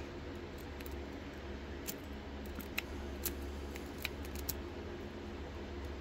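Steel lock pick working the pins inside a large shutter padlock: a handful of small, sharp metallic clicks, bunched in the middle, over a steady low hum.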